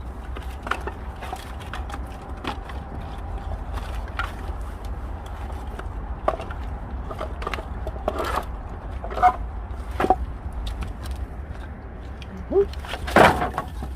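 Pieces of broken pallet wood knocking and clattering as they are handled, with a louder clatter near the end, over a steady low rumble.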